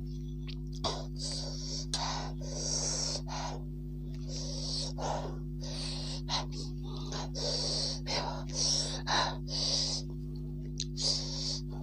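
A woman's breath drawn in and pushed out through the mouth in a long run of short, hissing gasps, with a couple of sharp clicks early on.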